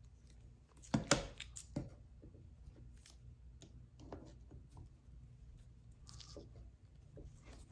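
Needle-nose pliers clicking and scraping on a small recessed screw in an Optispark distributor housing as it is worked loose, with a few sharp clicks about a second in, then faint ticks of handling.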